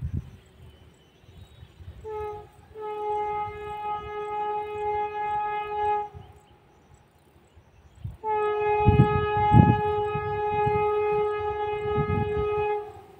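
Horn of an approaching Vande Bharat Express train: a short toot, then a long steady blast of about three seconds, a pause, and a second long blast of about four and a half seconds, all on one pitch. Low rumbling noise comes and goes beneath the second blast.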